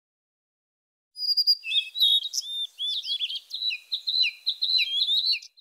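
Small songbirds chirping and singing in a busy run of quick, overlapping high notes. The song starts suddenly about a second in and cuts off abruptly near the end.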